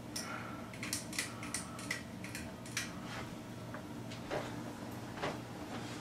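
Litex Diamond Crystal 52-inch ceiling fan motor humming steadily as it runs on high speed, with a scatter of light clicks and ticks, most of them in the first few seconds. The owner thinks it could spin faster and suspects it needs a new capacitor.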